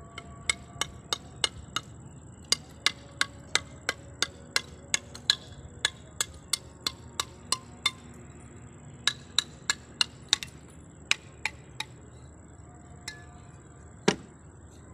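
A steel mason's trowel tapping and chipping a terracotta clay roof tile: quick, sharp, ringing taps about three a second for the first ten seconds, then a few scattered taps and one heavier knock near the end.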